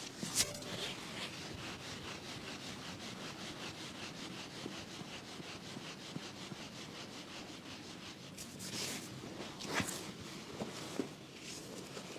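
Hands rubbing over skin in quick, even strokes during a hands-on chiropractic treatment, with a sharp click about half a second in and a few louder sharp snaps near the end.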